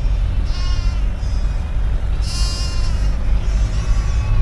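Sheep bleating several times, with the loudest, highest bleat about halfway through, over the steady low rumble of the ute's engine.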